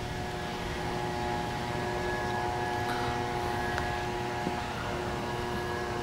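A steady mechanical hum: several held tones over a low rumble, with no distinct events.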